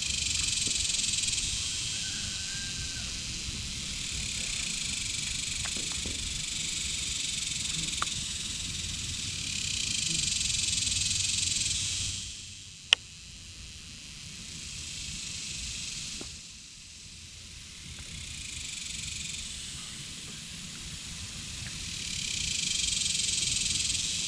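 Insects buzzing in a high, hissing chorus that swells and fades in long waves, with one sharp click about thirteen seconds in.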